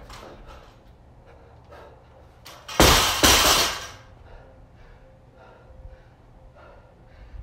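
A 135 lb barbell loaded with rubber bumper plates is dropped onto rubber gym mats. It lands with one loud crash about three seconds in, bounces and rattles briefly. Hard panting breaths come before and after.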